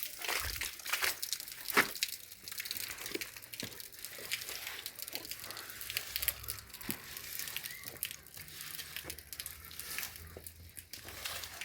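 Irregular crackling and rustling, made of many small sharp clicks at an uneven pace, with a slightly louder snap about two seconds in.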